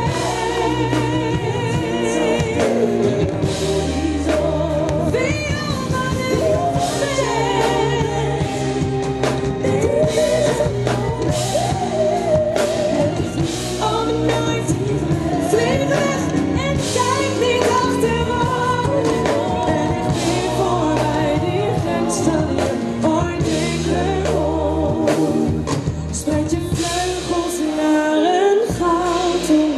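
A woman's lead vocal with backing singers over a live pop band of drums, keyboards and guitars, heard through the concert PA from among the audience. The singing is continuous, with wavering held notes over a steady beat.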